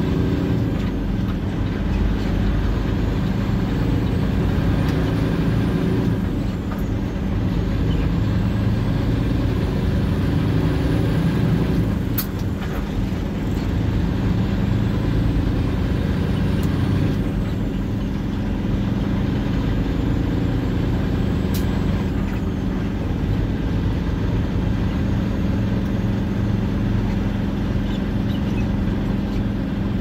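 A truck's engine running steadily while driving, with road noise, and a few isolated sharp clicks.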